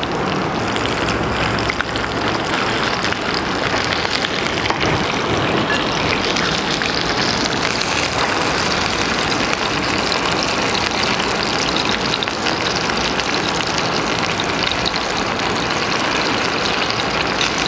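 Stuffed tofu, meat-stuffed bitter gourd and eggplant sizzling steadily as they shallow-fry in oil in a frying pan, browning slowly on low heat.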